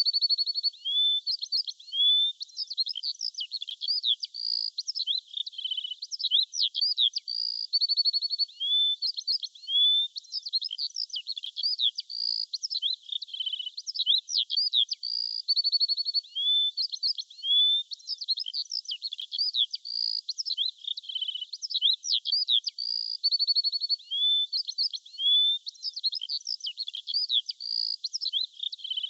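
Songbirds singing continuously: quick chirps, up-and-down whistled sweeps and short rapid trills, with the same phrases coming back again and again. There is no low-pitched sound under the birdsong.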